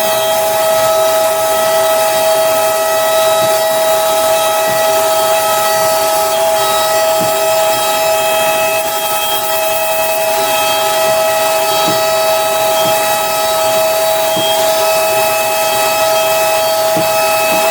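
An electric sander running steadily with a constant whining hum, and a few light knocks along the way.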